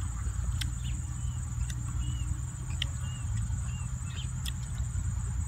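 A steady high-pitched drone of crickets, with short chirps of small birds and a few sharp clicks, over a low rumble.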